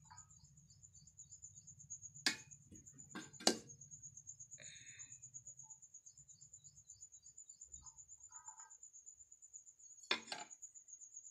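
A cricket trilling steadily throughout, with metal utensils knocking a few times as rice is ladled from a metal pot: sharp clanks a little over two seconds in, two more about a second later, and another near the end.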